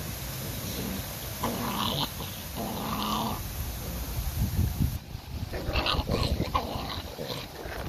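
Puppies growling over a skinned rabbit carcass as they tug at it and chew it, in short bursts: twice in the first few seconds, then a longer run from about five and a half seconds in.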